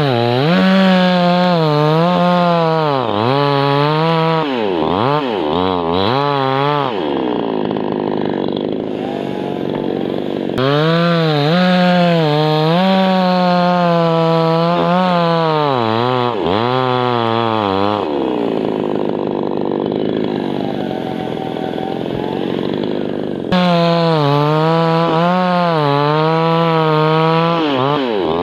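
Chainsaw bucking a birch trunk into firewood rounds: three long full-throttle cuts, the engine pitch sagging and wavering as the chain bites, dropping back to a low run between cuts.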